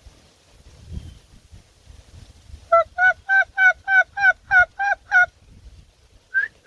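Turkey yelping: a run of nine loud, evenly spaced yelps at about three a second, then two more yelps near the end.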